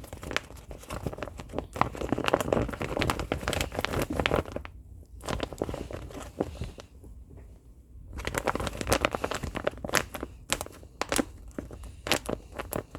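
Crinkling and crackling of a crinkly material being handled close to the microphone, in bursts with two short pauses, the busiest stretch in the second half.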